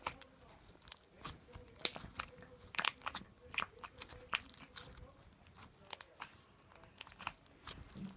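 Crunchy slime being squeezed and worked by hand, giving a string of irregular sharp crackles and pops, a few a second.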